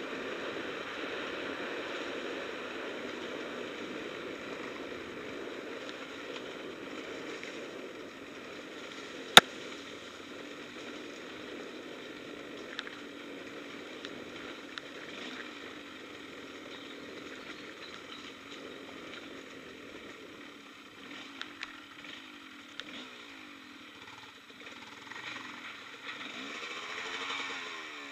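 Engine of an enduro off-road machine running steadily on a dirt trail, with one sharp knock about nine seconds in and the engine speed rising and falling near the end.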